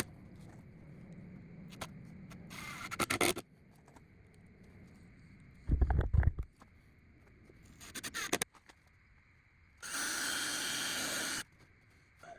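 Cedar boards and tools handled on a workbench, with short clatters and a few heavy knocks. Then a Ryobi cordless drill runs steadily for about a second and a half near the end, boring a pilot hole in the cedar.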